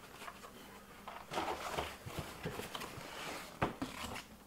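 Cardboard boxes and plastic packaging being handled: rustling and scraping as packages are set down and pulled from a shipping box, with a sharp knock late on.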